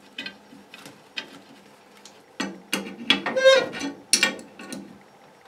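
A wrench and fitting on a gas pipe being worked and tightened: a run of irregular metallic clicks and clinks, sparse at first and louder from about two seconds in, with a brief ringing clink in the middle.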